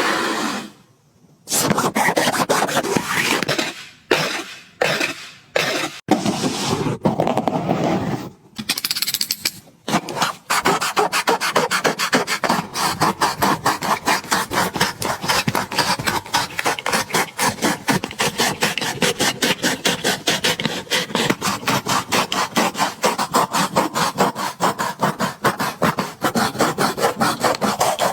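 A Nike Dunk Low Retro sneaker being taken apart by hand. There are short bursts of scraping noise with pauses between them, then from about ten seconds in a steady run of fast, even strokes.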